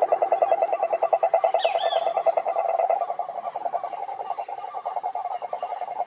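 Male cururu toad calling: a long, rapid, evenly pulsed trill that runs through without a break. A short bird chirp cuts in briefly about two seconds in.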